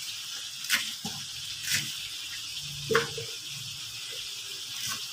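A kitchen knife cutting an onion on a wooden chopping board: four sharp knocks about a second apart, over a steady hiss.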